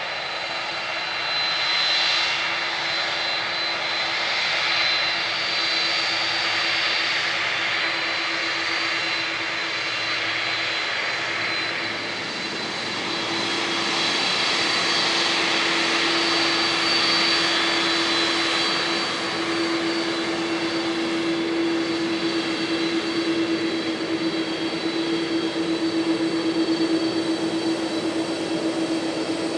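Boeing 767-300ER twin jet engines running at low power as the airliner taxis past: a steady whine with high tones over a low hum, the hum growing stronger in the second half as the aircraft comes closer.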